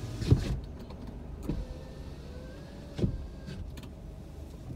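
Low, steady hum inside a car's cabin while the car stands still, with three short knocks, the first the loudest.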